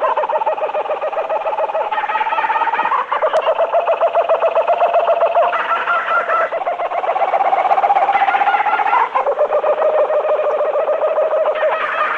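Animal chattering sound effect: a rapid, unbroken chatter of quick pulses held on one pitch at a time. It jumps to a new pitch about three seconds in and again about nine seconds in.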